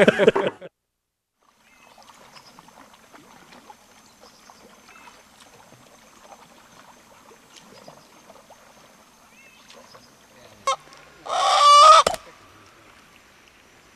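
A chicken held upside down by its legs gives one loud squawk lasting under a second, about eleven seconds in, preceded by a sharp click; before that only faint outdoor background.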